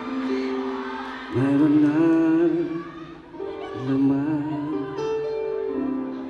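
Live band playing a slow ballad: electric bass, drums, electric guitar and keyboards, with a voice holding long wavering notes.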